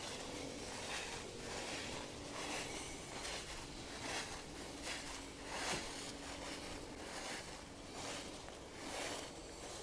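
Footsteps rustling through a thick layer of fallen autumn leaves at a steady walking pace, each step a soft swish.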